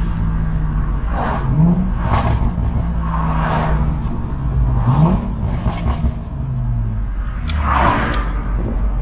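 Lexus IS350's 3.5 L V6 (2GR-FSE), through an Invidia midpipe and Manzo axle-back exhaust, revved in quick throttle blips: twice the revs rise quickly, hold briefly and fall away. Bursts of exhaust crackling come as the throttle is let off, the overrun pops of a custom tune, with two sharp pops near the end.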